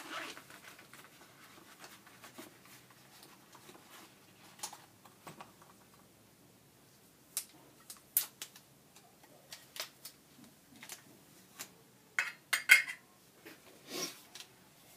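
Light metal clicks and clinks of a small spirit-stove burner and its folding metal stand being handled and set down on a bench, scattered irregularly, with the loudest knocks about twelve to thirteen seconds in.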